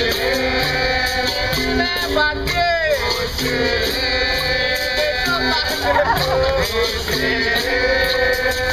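Capoeira roda music: berimbaus playing a repeating pattern of alternating notes, with pandeiro and voices singing over them.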